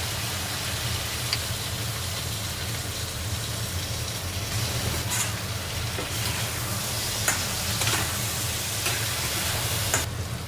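Food sizzling in a frying pan, with a few sharp clicks and scrapes of a utensil stirring it. The sizzle drops away suddenly near the end.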